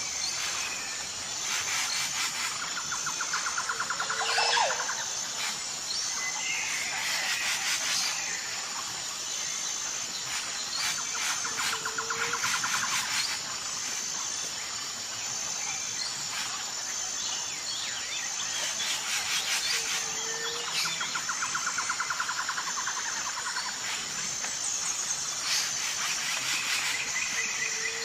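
Insects chirping: a steady, high-pitched, evenly pulsing trill runs throughout, joined about every eight seconds by a lower rattling call of rapid pulses lasting a couple of seconds that ends in a short low note.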